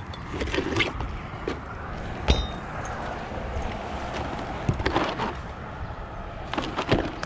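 Plastic roof box vent handled and set down on asphalt shingles: a few scattered knocks and scrapes, with one sharp clink about two seconds in, over a steady outdoor background hiss.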